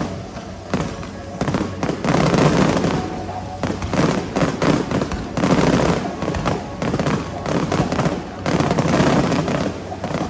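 Aerial fireworks going off in rapid succession: dense crackling and banging bursts that come in clusters, swelling and easing every second or two.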